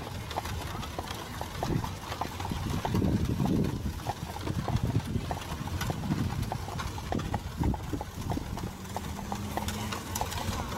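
Hooves of a pair of carriage horses clip-clopping steadily on the road as they pull an open carriage along.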